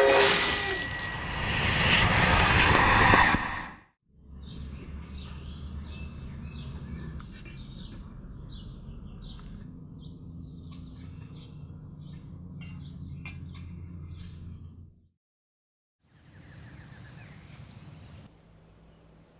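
Water flung from a basin splashing down onto grass, a rushing patter lasting a few seconds. Then a quieter rural ambience with birds chirping over a low steady hum.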